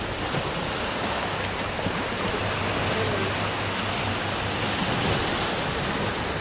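Heavy surf washing up a beach: a steady rush of breaking waves and moving water.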